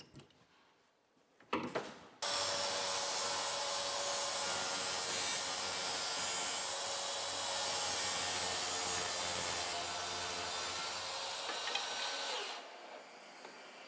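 Plunge track saw on its guide rail cutting through a cabinet panel, with a dust extractor pulling through its hose. The saw starts about two seconds in, runs steadily for about ten seconds, then drops away near the end.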